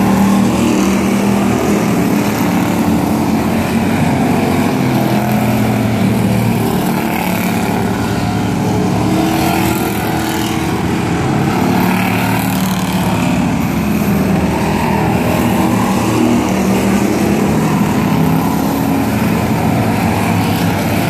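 A field of pure stock race cars running laps on a short oval, several engines at race speed overlapping, their pitches shifting up and down as cars pass and go through the turns.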